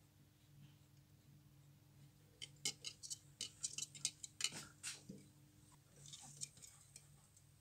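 A metal clip being handled on the rim of a glass jar, clicking and clinking against the glass in a quick run of small sharp clicks midway through, over a faint steady low hum.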